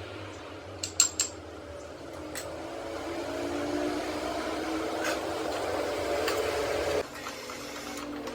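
An electric motor running with a steady hum, a few sharp clicks about a second in, then stopping suddenly about seven seconds in.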